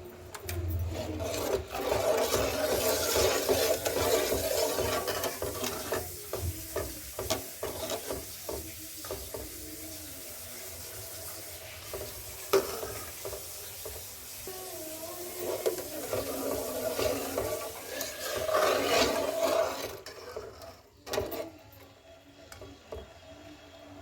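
Utensil stirring and scraping food in a cooking pot, irregular, easing off for a few seconds midway and stopping near the end.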